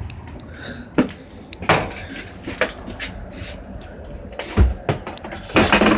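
A few sharp knocks and a heavy thump as things are handled and set down, then a short scraping rustle near the end.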